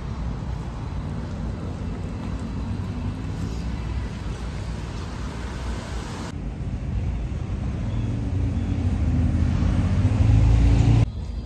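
Street traffic noise: cars driving past on the road. A low vehicle rumble builds louder over the last few seconds, then cuts off abruptly near the end.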